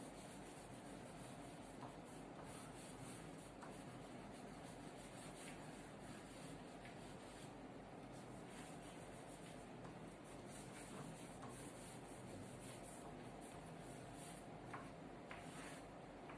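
Chalk writing on a blackboard: faint, continuous scratching of chalk strokes with a few light taps, over a low steady hum.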